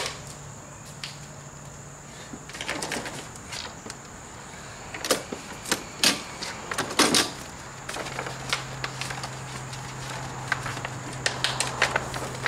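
Scattered clicks, knocks and rattles of plastic and metal parts as the folded handle of a new EGO battery lawnmower is lifted and unfolded, a few sharper knocks in the middle.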